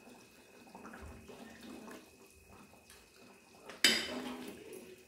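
Chicken curry being ladled from a steel pot into a bowl: soft sloshing and dribbling of the gravy, with one sharp clink of the metal ladle against the pot about four seconds in.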